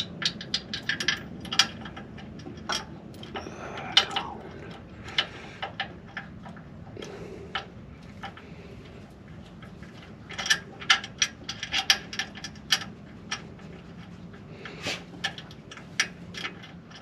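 Hand ratchet wrench clicking in quick runs as a suspension bolt is turned, in several bursts with short pauses between them.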